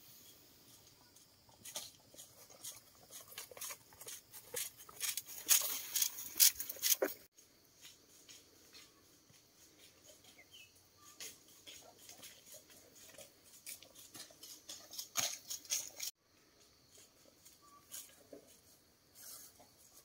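Footsteps crunching and rustling through dry leaves and undergrowth: irregular crackling steps, loudest a few seconds in, breaking off abruptly twice.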